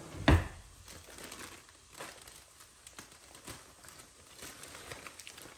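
A single loud thump about a third of a second in, then scattered crinkling and rustling of a plastic bag of chopped kale being handled.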